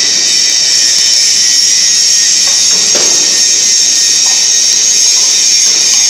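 Steady, loud high-pitched hiss of workshop background noise, with a few faint short sounds about two and a half and three seconds in.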